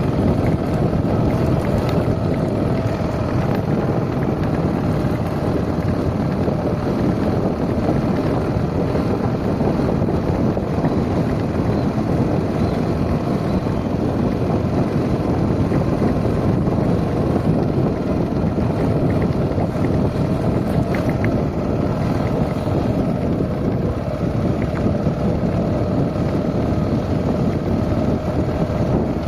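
A motor running steadily, with wind rushing over the microphone.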